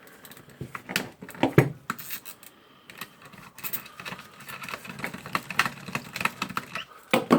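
Hand-work handling noise: irregular clicks, knocks and scrapes of metal tool parts and hand tools being handled on a workbench, with no power tool running.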